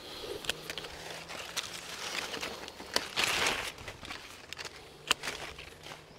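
Pruning shears snipping guava branches, with leaves and twigs rustling as they are pulled away. Several sharp clicks, and a louder burst of rustling about three seconds in.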